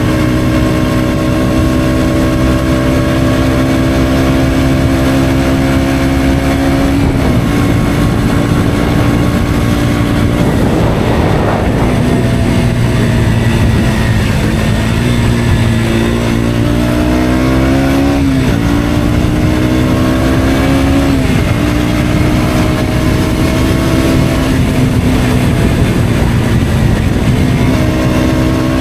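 KTM Duke 125's single-cylinder four-stroke engine running through an Akrapovic exhaust while riding. The engine note holds steady, eases off, then climbs in pitch through the gears with a sudden drop at each shift, twice in the second half; a brief rushing noise comes about a third of the way in.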